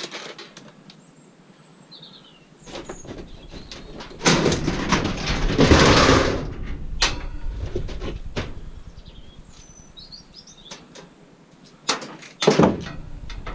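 Scrap metal being handled and sorted: scattered knocks, a loud scraping rattle from about four to seven seconds in, and two sharp knocks near the end. Birds chirp in the background.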